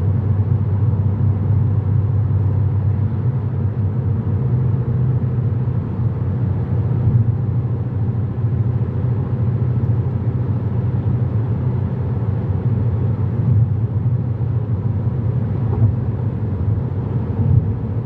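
Steady low road and engine drone heard inside a car's cabin while driving on a motorway.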